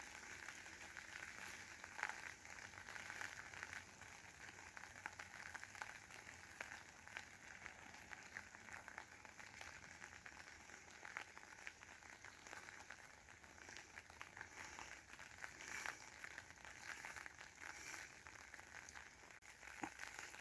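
Faint outdoor background: a low steady hiss with fine crackles running through it.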